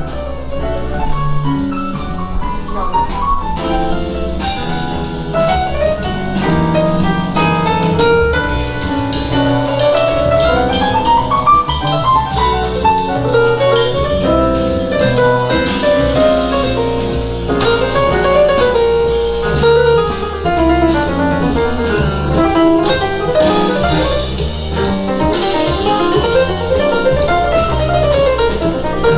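Jazz recording of piano with drum kit, played back at a steady level through a pair of floorstanding hi-fi loudspeakers. Piano runs rise and fall over steady cymbal strokes.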